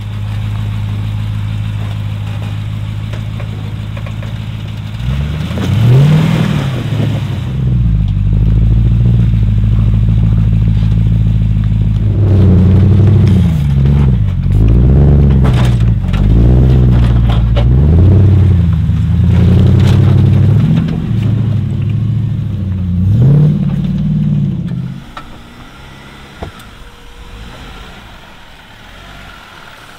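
Jeep Wrangler engine running low and steady, then revving up and down again and again for about twenty seconds as the Jeep crawls over boulders on a rock obstacle, with a few knocks along the way. The engine then drops away to a much quieter level near the end.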